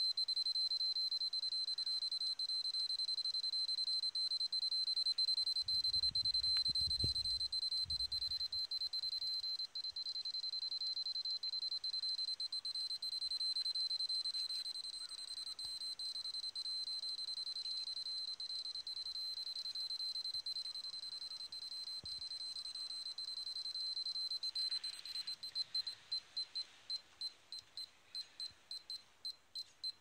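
Polimaster radiation dosimeter's alarm sounding a continuous high-pitched tone while it reads about 3 μSv/h over bare soil. About 25 seconds in, the tone breaks into rapid beeps, two or three a second, as the reading drops below 1 μSv/h. A brief low rumble about six seconds in.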